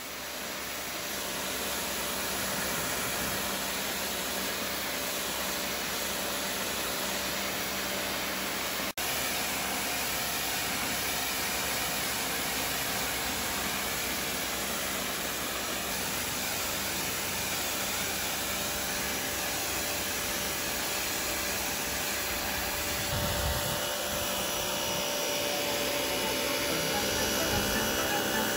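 Innovex IPW002 1600 W electric pressure washer running: a steady motor-and-pump hum and whine under the hiss of the high-pressure water jet. It fades in over the first couple of seconds.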